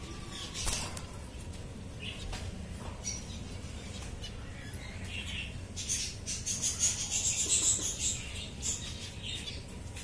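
Lutino budgerigars chirping in short, high calls, with a busier, louder run of chirps about six to eight seconds in.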